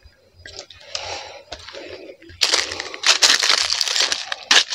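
Footsteps crunching and rustling through dry grass and dead plant litter on a dirt path, with irregular crackles; much louder from about two and a half seconds in.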